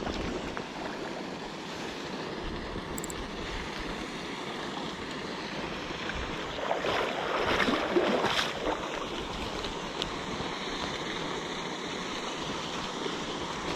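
Steady rush of flowing river water, with a louder stretch of splashing about seven to eight seconds in.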